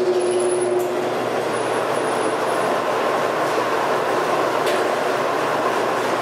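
Three large industrial box fans running and coming up to speed, giving a loud, steady rush of air with a motor hum.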